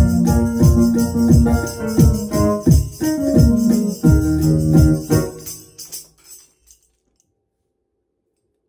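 Electronic keyboard playing the closing chords of a song, with a steady jingling beat over it. The music fades out about six seconds in and ends in near silence.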